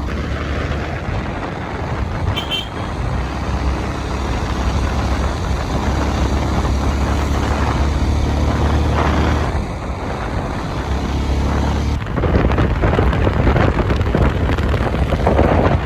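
Motor vehicle engine running steadily with road noise, heard from on board. About twelve seconds in, gusty wind noise on the microphone becomes the loudest sound.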